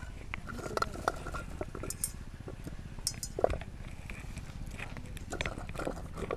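Cauliflower florets dropped one at a time into a steel kadai of hot salted turmeric water for blanching, making soft plops and small splashes, with light clinks of a steel bowl. A steady low rumble runs underneath.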